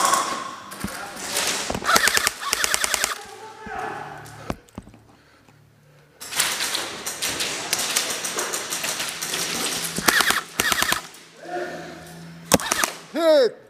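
Airsoft guns firing rapid full-auto bursts of fast clicks, several bursts with a short lull partway through.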